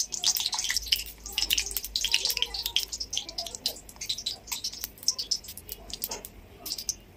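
Oil heating in a metal kadai, crackling and popping with many quick sharp pops. The pops are densest over the first few seconds and thin out toward the end.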